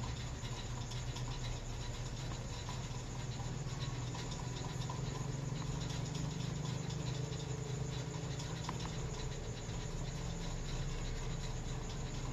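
Steady low hum of room background noise, with faint quick ticking throughout.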